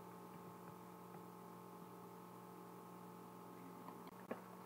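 Near silence: a faint, steady electrical hum, with one small click about four seconds in.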